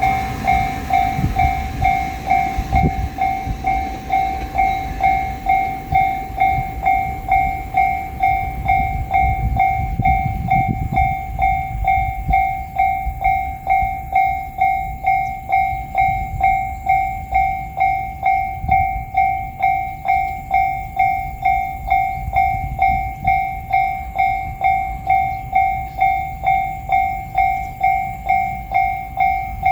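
Japanese railway level-crossing warning bell ringing its repeated 'kan-kan' strikes, about one and a half to two a second, each a clear two-tone chime that dies away before the next. A low rumble runs underneath, swelling a few seconds in and again around ten seconds in.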